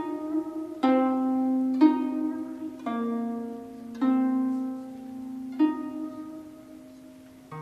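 Slow music on a plucked string instrument: single ringing notes struck about a second apart, each left to die away, growing softer toward the end.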